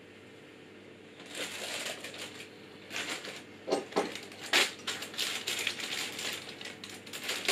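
Plastic packaging crinkling and rustling as it is handled and opened, in short irregular bursts that start about a second in.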